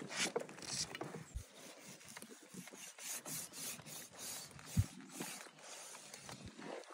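A long ham knife scraping and slicing across the rind and fat of a cured ham clamped in a ham stand, in quick, repeated back-and-forth strokes. There is a single low knock about two-thirds of the way through.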